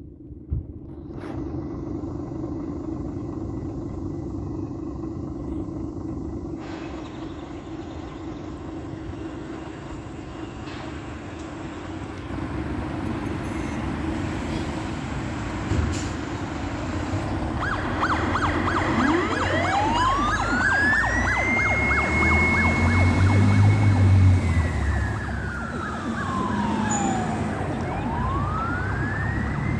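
Scania fire truck's diesel engine running as the appliance pulls out. About two-thirds of the way in its siren starts with a fast pulsing tone, then wails: it rises to a high steady pitch, holds a few seconds, falls, and rises again near the end.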